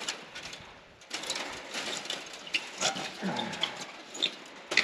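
A person climbing over a wire stock fence: rustling clothing and dry grass with small clicks and creaks from the wire and wooden posts as his weight goes onto them, and a short falling creak or grunt about three seconds in.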